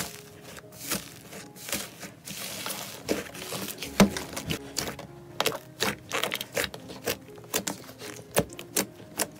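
Thick purple fluffy slime being crushed and kneaded by hand: a fine crackle at first, then loud sticky clicks and pops about twice a second.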